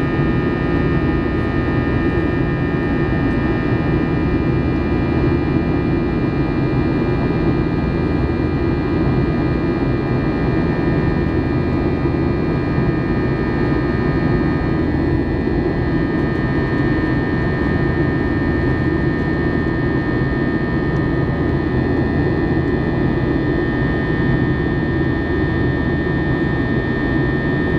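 Airliner cabin noise in the climb after takeoff, heard beside the wing: the turbofan engines' steady deep rush with several steady high whining tones over it.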